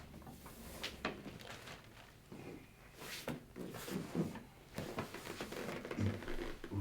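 Person turning over on a padded chiropractic treatment table: scattered rustling, creaks and small knocks, with a couple of soft thumps near the end as the body settles.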